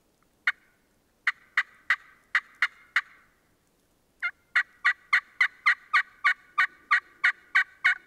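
Turkey yelping: a broken run of about seven sharp yelps, then after a short pause a steady run of about a dozen at roughly three a second.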